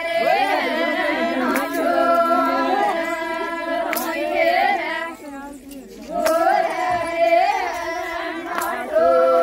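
A group of women singing a folk wedding song together, many voices overlapping on held, wavering notes. The singing breaks off briefly a little past halfway, then picks up again.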